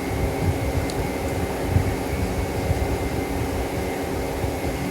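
A machine running steadily: an even hum with a fluctuating low rumble.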